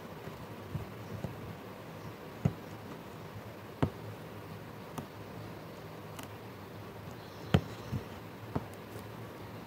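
Aari hook needle piercing and pulling through cloth, making faint sharp clicks about once a second over a low steady hum.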